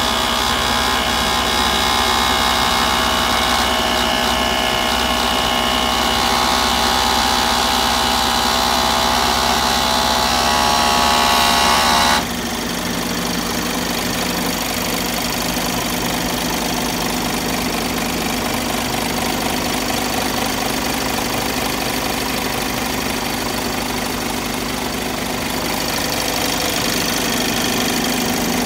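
Isuzu Giga truck's diesel engine idling steadily. Higher steady tones over it cut out abruptly about twelve seconds in, leaving a quieter, duller idle.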